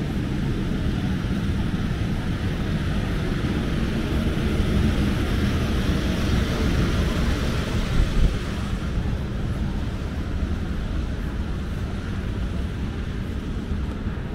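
Outdoor street ambience: a steady low rumble with a hiss that swells through the middle and eases off, and a brief bump about eight seconds in.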